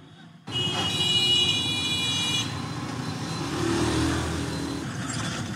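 Street traffic starts abruptly about half a second in: steady noise of road vehicles, with a high vehicle horn sounding for about two seconds near the start.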